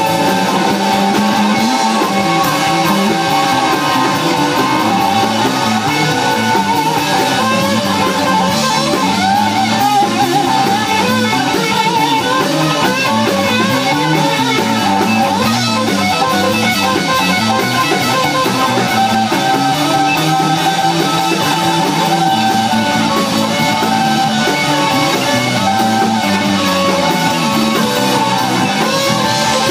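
Live rock band playing an instrumental stretch: electric guitar out front over bass guitar and a drum kit.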